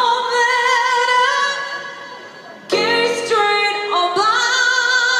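A woman singing long held notes with a wavering vibrato over piano accompaniment. A new chord comes in sharply about two and a half seconds in, then she holds another note.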